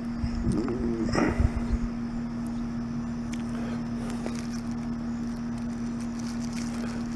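A steady low-pitched hum with a low rumble beneath it and a few faint ticks.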